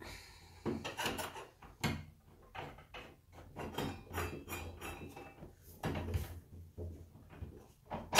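Metal door-handle and lock parts clicking and clinking as they are fitted into a wooden door, in a series of short separate knocks, with one sharp, loud knock right at the end.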